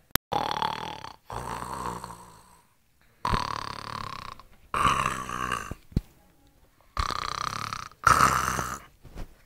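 A sleeping baby snoring: rough, rasping snores in breath-in and breath-out pairs, three breaths over about nine seconds.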